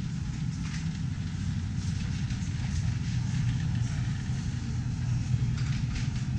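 Steady low rumble of indoor store background noise, with a few faint clicks.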